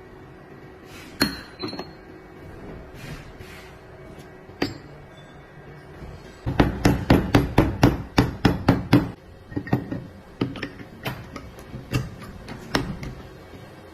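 Hammer strikes on metal: a few single taps, then a quick run of strikes about six a second for a couple of seconds, then more spaced single taps.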